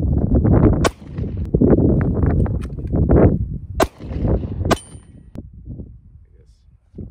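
Three gunshots, about 3 s and then 1 s apart; the last is followed by a brief high ring, like a bullet striking a steel target. Wind buffets the microphone through the first half.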